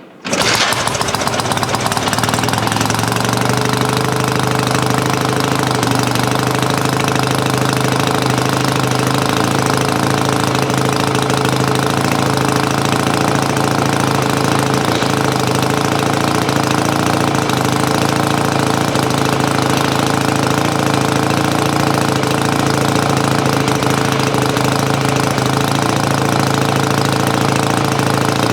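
1968 BSA Lightning A65's 650 cc parallel-twin engine starting less than a second in, then settling within a few seconds into a steady idle.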